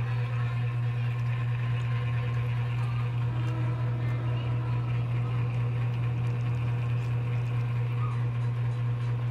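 A steady low hum that holds at one level throughout, with faint small clicks and rustles of people eating by hand.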